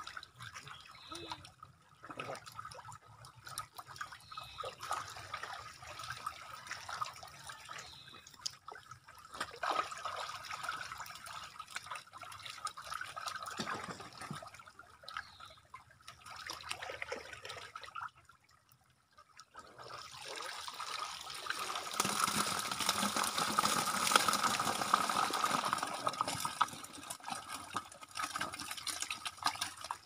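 Water splashing and sloshing in irregular bursts. It dies away briefly past the middle, then grows louder and busier for several seconds near the end.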